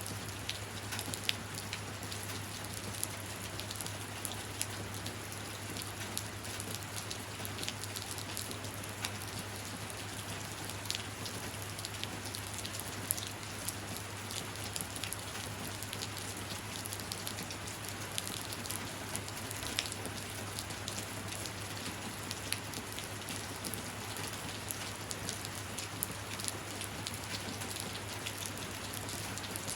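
Steady rain falling, with scattered sharp drops tapping throughout and a low steady hum underneath.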